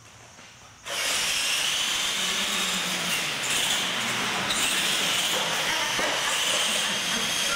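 Electric radio-controlled monster trucks driving fast across a concrete floor: a steady high motor whine over hissing tyre noise, starting suddenly about a second in.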